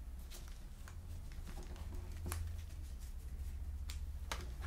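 Trading cards being handled and sorted by hand: soft rustles and light clicks of card stock, with two sharper ticks about two and four seconds in, over a faint steady low hum.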